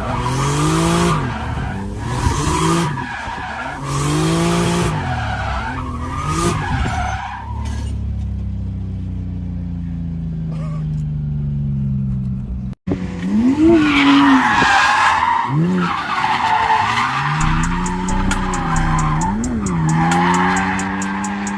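Car drifting: the engine revs up and down in quick pulses while the tyres squeal, then holds a slowly falling note for a few seconds. After a sudden break a little past halfway, the revving and tyre squeal start again.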